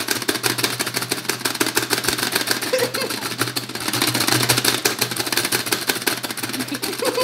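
Plastic buttons of a Cara Splash (Pie Face Showdown) two-player game being slapped rapidly by both players, a fast clatter of clicks and knocks as they race to fling the foam at the other's face. A low steady hum runs underneath.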